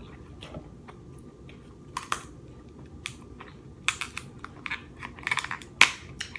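King crab leg shells cracking and snapping as they are broken apart by hand: a string of sharp crisp clicks, sparse at first and thicker in the second half, with one loudest crack near the end.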